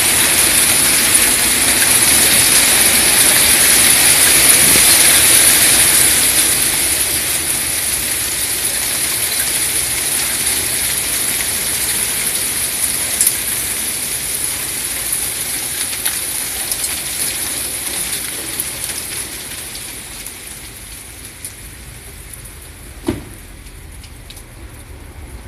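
A hail shower: a dense, loud hiss of hailstones pelting foliage, paving and ground, easing off steadily over the second half to a much lighter patter. One brief sharp sound stands out near the end.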